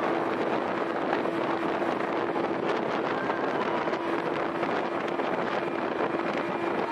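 Small open motorboat running fast with a steady engine drone, under the rush of wind buffeting the microphone and water against the hull.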